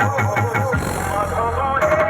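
Loud DJ dance music played through a large sound-system speaker rig: a fast, even beat over heavy bass, the pulsing bass giving way to a steady deep bass under a melody about three-quarters of a second in.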